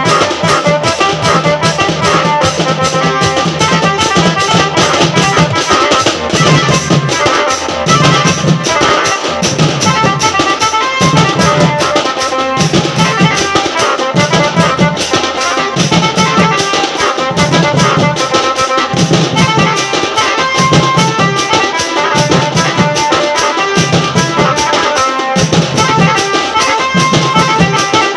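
Live traditional band music: drums and large hand cymbals beat out a steady rhythm, with a deep drum stroke about once a second, under a reedy wind melody.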